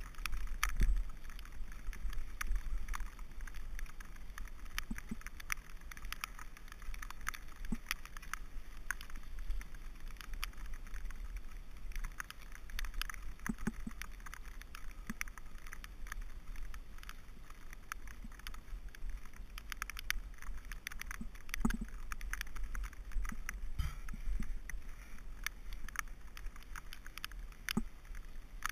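Mountain bike riding over a wet, muddy dirt track: tyre noise on the wet ground with a steady low rumble, and frequent clicks and rattles from the bike over the bumps.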